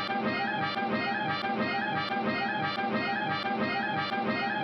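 Orchestral cartoon soundtrack music, a short phrase repeating over and over at a steady level.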